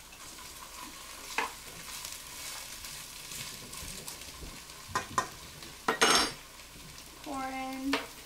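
Diced potatoes and onions frying in oil in a pot, a steady low sizzle, while a metal spoon stirs them. The spoon clacks sharply against the pot's side several times, clustered about five to six seconds in.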